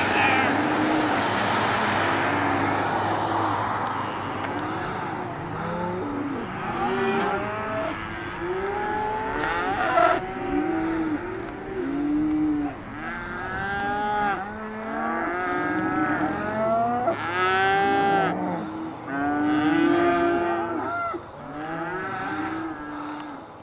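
A herd of cattle mooing and bawling, many overlapping calls one after another, with a rushing noise under them in the first few seconds.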